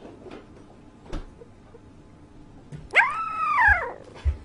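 A puppy gives one short howl about three seconds in, its pitch rising and then falling, followed by a low thump.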